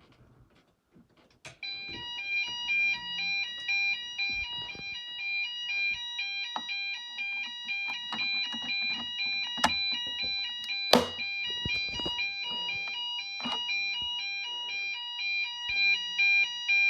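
Fire alarm on a Fike fire alarm system sounding during a test. It comes on about a second and a half in as a fast alternating two-tone sound and keeps going, with a few sharp clicks partway through.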